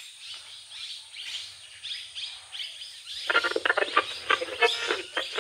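Birds chirping, a short call repeated about twice a second. About three seconds in, a louder, busier sound comes in over them.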